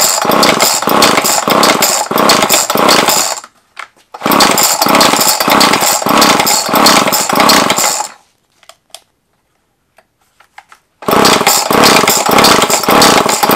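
Homelite XL 26.2cc two-stroke chainsaw engine being pull-started in three runs of quick, repeated pulls on the recoil starter cord, separated by short pauses; the engine turns over but never fires, because it has no spark plug in it.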